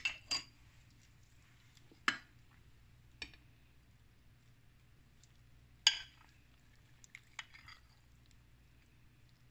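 Scattered sharp clinks and taps of kitchen utensils against dishes. The loudest come right at the start, about two seconds in and about six seconds in, over a low steady hum.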